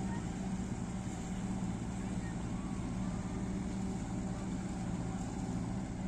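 Engine of a sailing catamaran motoring slowly under power, a steady low hum with an even drone.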